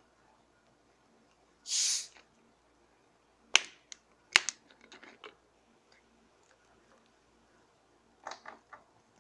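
A 1-litre plastic cola bottle being opened: a short hiss of escaping carbonation as the cap is loosened, then sharp clicks and crackles from the cap and the plastic bottle. Near the end comes a short cluster of clicks as the cola starts to pour into a plastic tub.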